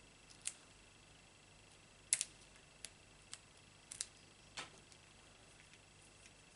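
Faint, scattered clicks and light scratches, about six in all, of fingernails picking the paper backings off mini foam adhesive dots (mini dimensionals); the sharpest click comes about two seconds in.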